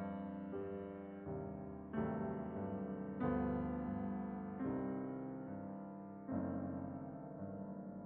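Background piano music: slow, soft chords, a new one struck every one to two seconds and each fading away.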